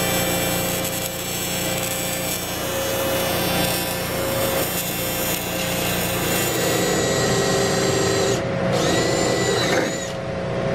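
Arc welding on the Audi R8's aluminium front frame: a steady hissing arc with an even hum, as a bead is laid to fill the crack. About eight and a half seconds in it gives way to a different, shorter power-tool whine that rises and then levels off.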